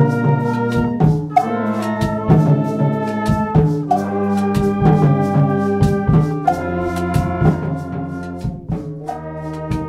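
A wind band plays brass chords that change every second or so over a steady beat of drum and cymbal strokes.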